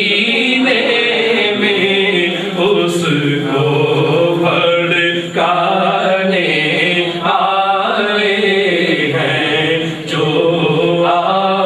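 Manqabat sung in devotional chant style: voices carry a wavering melody over a steady low drone, with no pause.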